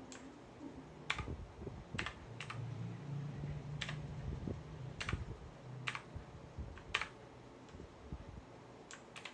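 Single key presses on an AULA F2068 mechanical keyboard with blue switches: sharp separate clicks, about nine of them at roughly one a second, with two close together near the end.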